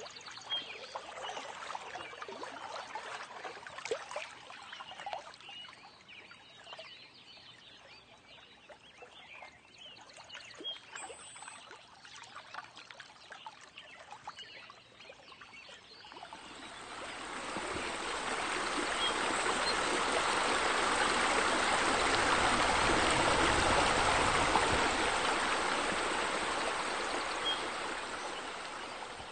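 Water trickling and splashing with small drips, then about halfway a steady rush of falling water that swells up and slowly fades near the end, like the pool's bubblers and water features running.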